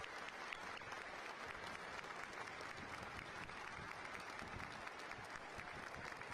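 Football stadium crowd in the stands: a steady wash of crowd noise with clapping.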